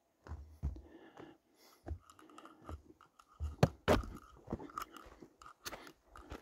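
Footsteps crunching and scuffing on a dry, gritty dirt trail: an irregular run of short crunches with low bumps, starting abruptly after silence.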